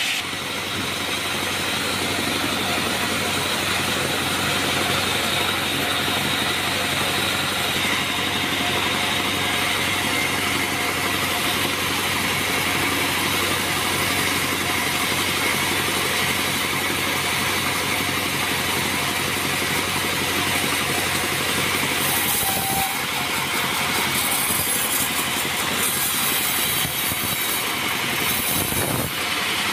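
Band sawmill running steadily, its machinery giving a constant hum with a steady higher whine.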